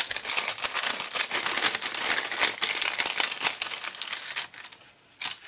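Crinkling and rustling of a thin translucent bag and the paper die cuts inside it as it is opened and handled, dying down near the end.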